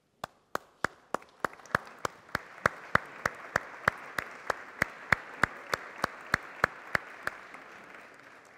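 Audience applauding, with sharp, evenly spaced claps about three a second standing out over the crowd. The applause builds in the first second and fades near the end.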